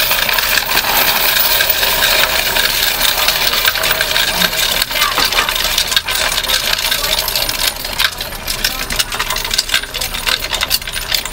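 Bank coin-counting machine taking in a load of loose US coins (quarters, dimes, nickels and pennies) pushed by hand through its tray: a continuous loud clatter of coins tumbling and rattling inside. In the last few seconds the clatter thins into more separate clinks as the tray empties.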